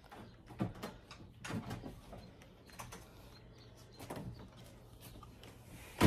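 Plastic trigger-spray head being handled and fitted onto a spray bottle: scattered clicks and rattles, ending in one sharp, loud click.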